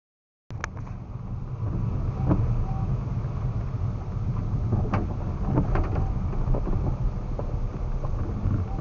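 Car cabin noise while driving: a steady low road rumble, with scattered faint clicks. It starts abruptly about half a second in, after silence.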